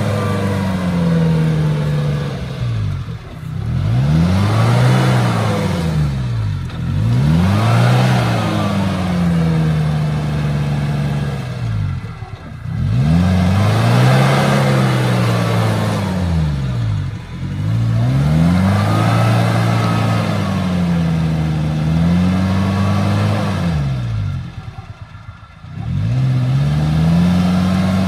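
Maruti Suzuki Gypsy's four-cylinder petrol engine revving up and down over and over under load as the 4x4 crawls off-road through tall grass and soft ground. It drops away briefly near the end, then comes back to a steady run.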